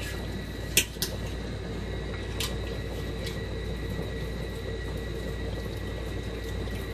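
Cream sauce with sausage simmering in a stainless steel skillet: a steady hiss and bubbling over a low hum, with a few sharp pops or clicks, the loudest about a second in.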